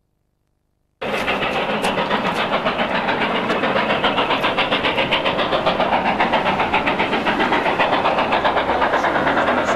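Steam locomotive working hard on a passenger train, its exhaust beats rapid and even. The sound comes in suddenly about a second in.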